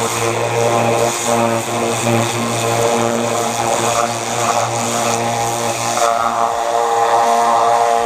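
A pressure washer runs steadily while its jet of water hisses against a supercharger case, blasting off paint that has been loosened for stripping.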